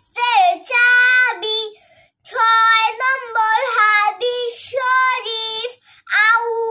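A young girl chanting hadith in a high, melodic singing voice with no accompaniment, holding long notes and pausing briefly for breath about two seconds in and near the end.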